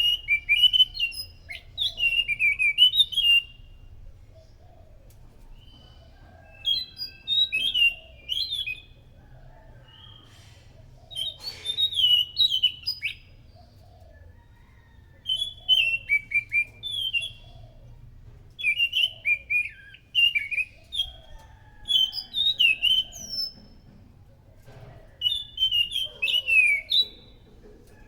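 Anis macan thrush singing: repeated short phrases of quick, sliding whistled notes, each phrase a second or two long and separated by brief pauses, about eight phrases in all.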